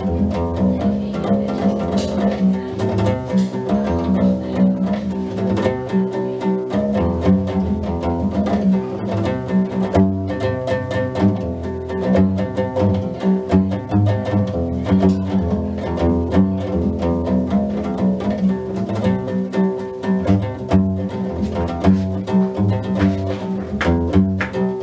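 Guembri, the Gnawa three-string bass lute with a skin-covered body, played solo: a steady, rhythmic run of deep plucked bass notes with sharp percussive clicks on the attacks.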